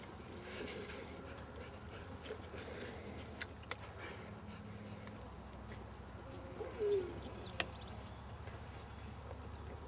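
English Mastiff chewing a raw pork butt, with a few sharp clicks. A short, low coo-like call about seven seconds in is the loudest moment.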